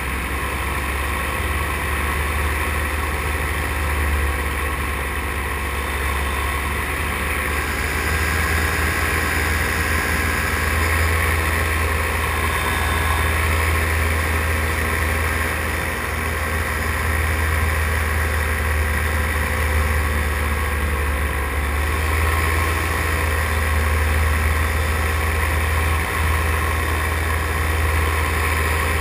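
Paramotor engine and propeller running steadily in flight, a constant drone that swells and eases slightly in level.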